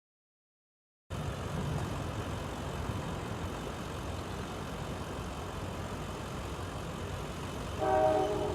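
A steady low rumble starts after a second of silence. Near the end a locomotive's air horn begins sounding a steady multi-note chord.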